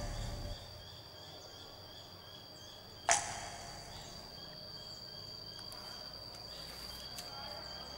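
A sudden whoosh sound effect about three seconds in, over a steady high-pitched whine. A low musical bed stops about half a second in.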